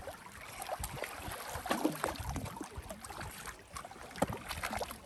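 Shallow lake water lapping and splashing against a limestone ledge, with small irregular splashes from feet dangling in the water.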